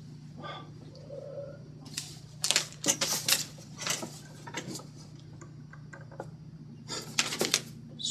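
Newspaper pages rustling and crackling as they are handled and turned, with sharp clicks, in two bursts: a longer one about two seconds in and a short one near the end.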